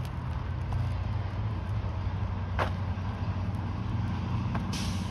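Steady road-traffic noise of cars going by, a continuous low rumble, with a short hiss near the end.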